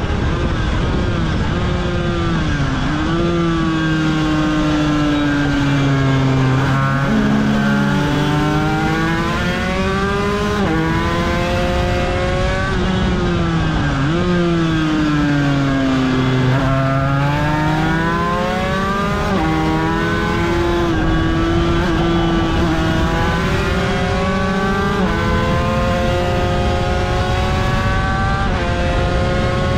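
Aprilia RS250's two-stroke V-twin racing engine under hard riding, onboard. Its pitch climbs and falls with the throttle, broken by sudden jumps at gear changes, with long falls in pitch as the bike slows.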